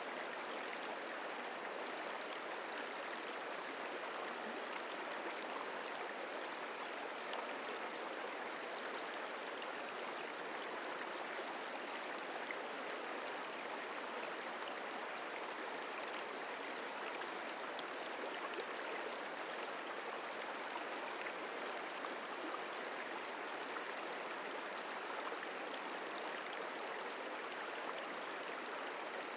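The Merced River flowing: a steady, even rush of water that does not change.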